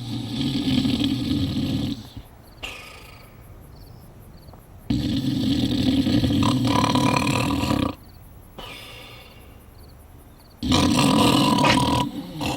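Performed cartoon-style snoring: three loud snores about five seconds apart, each followed by a quieter, breathy exhale.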